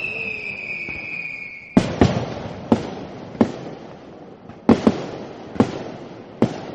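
Fireworks going off: a whistling rocket whose whistle falls slightly in pitch and ends in a bang about two seconds in, followed by a string of sharp bangs roughly a second apart, with crackle between them.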